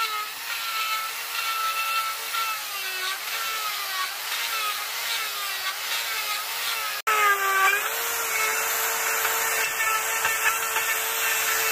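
Makita chainsaw carving into a log, its motor pitch dipping and recovering over and over as the chain bites into the wood. A sudden break comes about seven seconds in, after which it runs at a steady pitch.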